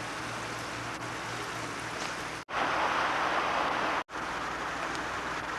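Steady rush of a flowing river, louder for about a second and a half in the middle, cutting out briefly twice.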